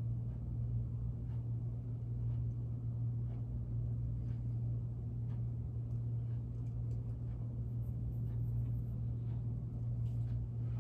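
Steady low background hum in a small room, with a few faint light ticks.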